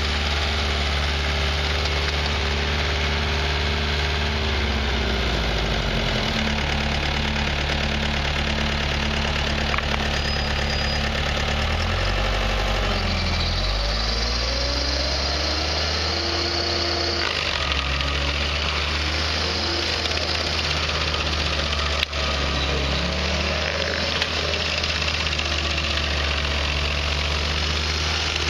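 Bandit stump grinder's engine running steadily while its cutter wheel chews into a tree stump, the engine note sagging under load around 5 seconds in and again around 13 seconds. A sharp click about 22 seconds in.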